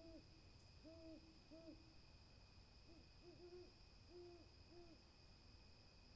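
Owl hooting: two runs of short, low hoots, the second starting about three seconds in after a pause. A faint steady high tone sounds underneath.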